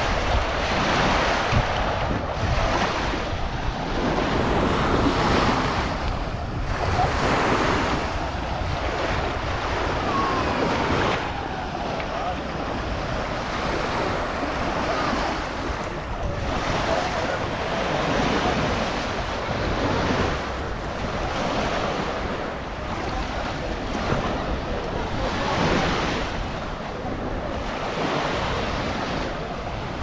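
Small waves washing onto a sandy shore, the surf swelling and easing every second or two, with wind buffeting the microphone.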